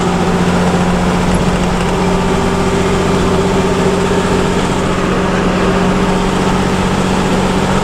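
Intercity bus engine and road noise heard from inside the cabin while the bus cruises along the highway: a steady, even drone with a constant low hum.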